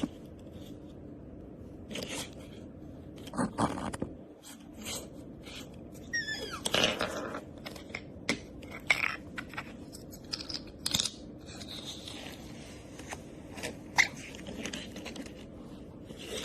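Otter crunching and chewing on a toy, with scattered sharp clicks and scrapes, and a short wavering high-pitched squeak about six seconds in.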